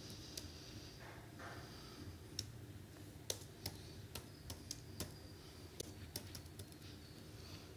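Faint typing on a computer keyboard: scattered, irregular key clicks as a search phrase is typed in.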